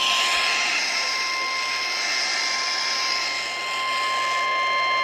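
Emergency alert attention tone: one steady high tone near 1,000 Hz, the single-tone weather radio warning alarm, held over static hiss that fades about four seconds in.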